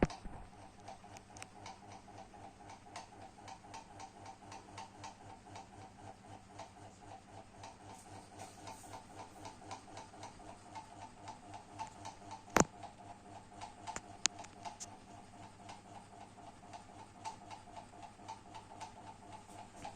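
GMC FC-06-90 mini ceiling fan, fitted with extension blades, running with a steady hum that pulses in time with a regular ticking, about two to three ticks a second. A single sharp click stands out about two-thirds of the way through.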